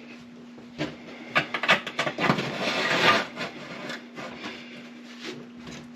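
Handling noise as a new oven heating element is pushed into place through the oven's back wall: a few sharp clicks and knocks, then a stretch of scraping and rubbing about two to three seconds in, over a steady low hum.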